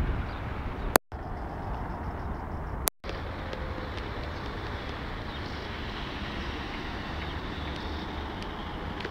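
Steady outdoor background noise of road traffic picked up by a mobile phone's microphone. The recording cuts out twice, each time with a click, about one and three seconds in.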